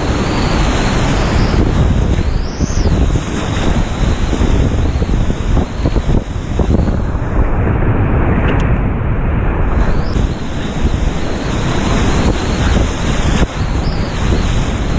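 River rapids rushing and crashing loudly and steadily around a whitewater kayak, heard up close from the boat, with a low rumble of buffeting on the camera's microphone.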